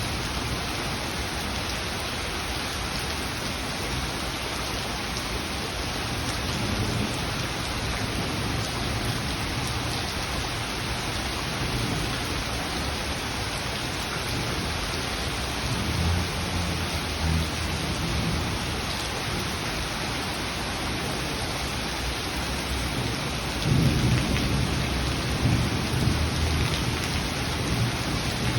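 Steady rain falling, with low rolls of thunder rumbling several times; the loudest thunder roll comes near the end.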